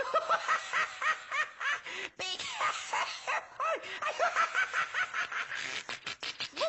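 High-pitched, squeaky puppet-character laughter: quick repeated giggles, several a second, with a short break about two seconds in.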